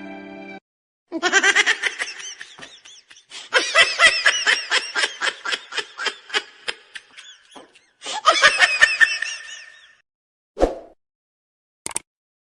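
High-pitched laughter in three bouts of quick, rhythmic bursts, the long middle bout trailing off. A short thud follows near the end.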